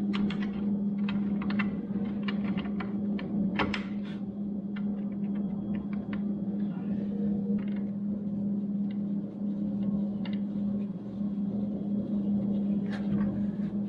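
Steady low electrical hum, with light metallic clicks and clinks of tools and bolts as parts of a table saw are fitted back on, thickest in the first few seconds and again near the end.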